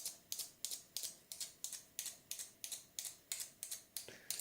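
A magnet being rubbed in quick, even strokes along a small screwdriver's steel shaft, about four scraping strokes a second, to magnetise the tip so it will pick up tiny screws.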